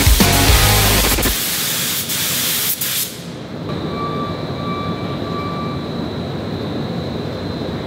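Gravity-feed DeVilbiss GTi spray gun hissing as it sprays clear coat, a loud even hiss that cuts off about three seconds in. A quieter steady background noise with a thin high whine follows.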